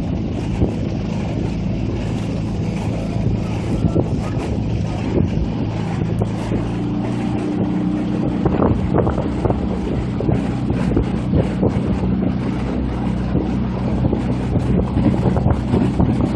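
Coaching launch's motor running steadily, with wind on the microphone.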